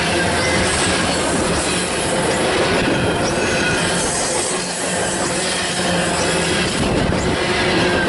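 Freight train of covered hopper cars rolling past, its steel wheels rumbling and clacking on the rails with a faint high squeal.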